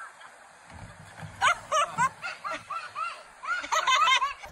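A person laughing hard in a run of short, high-pitched 'ha' bursts, about four a second, starting about a second and a half in and breaking out again more densely near the end.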